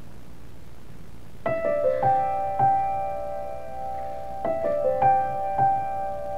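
Background piano music: after a second and a half of faint steady background noise, slow struck piano notes begin and ring on, overlapping one another.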